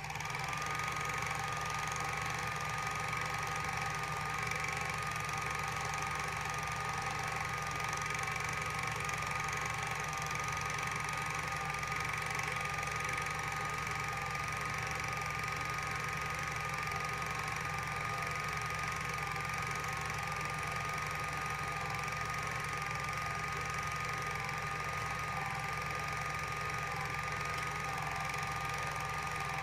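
Super 8 film projector running steadily: a slightly wavering motor whine over the fast, even clatter of the film transport.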